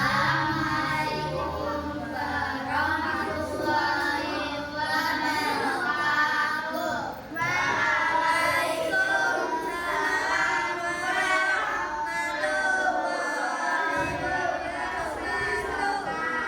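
Young voices singing a song, with music behind them.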